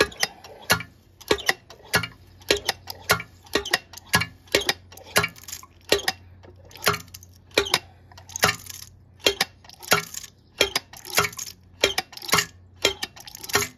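Throttle linkage of a Quadrajet four-barrel carburetor worked open and let snap shut by hand, over and over, making a run of sharp metallic clicks, often in quick pairs. Each stroke works the accelerator pump, pumping it down until its fuel squirt peters out.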